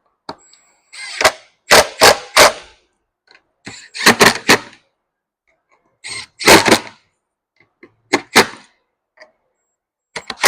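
Sharp, loud knocks and snaps, in bursts of two to four strikes about every two seconds, as a part is forced and snapped back onto a steering wheel assembly.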